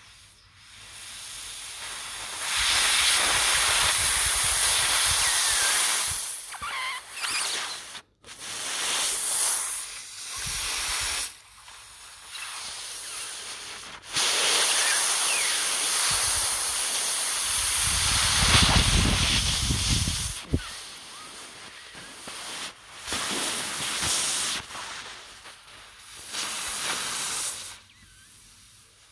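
A person's vocal imitation of a moving steam train: hissing steam sounds in bursts of varying length, with a lower rumbling stretch about two-thirds of the way through.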